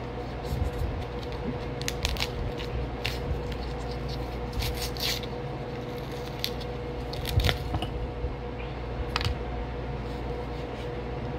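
A paper-wrapped box of Argo cornstarch being torn open by hand, with irregular crackles and crunches as the packed cornstarch brick breaks apart and small chunks tap into a glass bowl.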